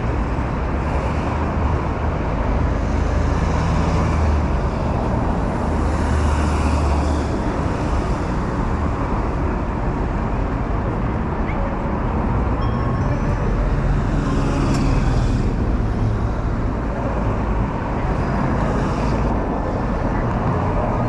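Busy city street ambience: steady road traffic with a low engine hum, and vehicles passing by now and then.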